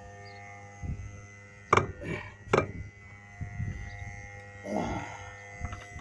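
Two sharp metal clanks of hand tools being handled, a bit less than a second apart, over a steady low hum. A short sound falling in pitch comes near the end.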